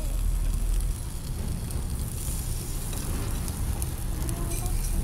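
Snails in their shells sizzling and crackling on a charcoal grill: a steady hiss with scattered small crackles, over a low rumble.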